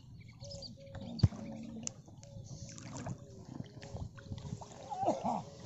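Lake water sloshing and splashing around a fisherman wading chest-deep while he handles a cast net and its catch. There is a sharp knock a little over a second in.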